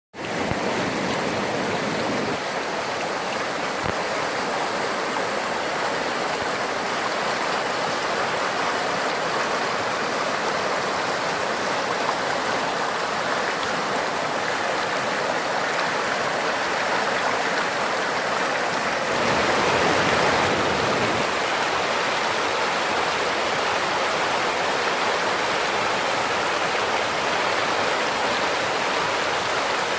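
Mountain stream rushing steadily over rocks, a strong, clear water sound. It swells fuller and a little louder about two-thirds through.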